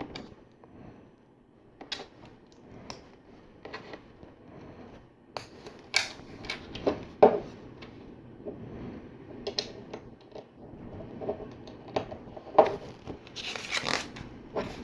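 LEGO plastic bricks and plates clicking and snapping together as small pieces are handled and pressed on, in irregular single clicks a second or so apart. There is a busier patch of clicking and handling near the end.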